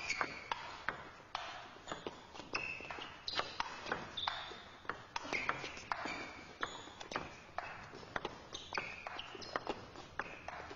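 Table tennis rally: the ball clicks sharply off rackets and table, a few hits every second, in a long back-and-forth of chopped defensive returns. Short high squeaks of players' shoes on the floor come in between the hits.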